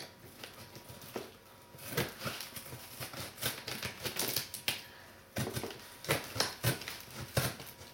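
A taped cardboard package being handled and worked open by hand: irregular rustles, scrapes and sharp clicks.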